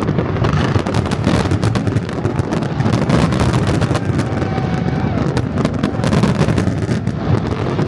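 Fireworks going off in quick succession: many sharp bangs and crackles over a continuous rumble.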